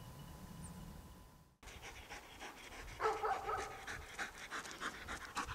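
A hunting dog panting rapidly and rhythmically, about five breaths a second, with short high whimpers from about three seconds in. The first second and a half is quiet with a faint steady tone.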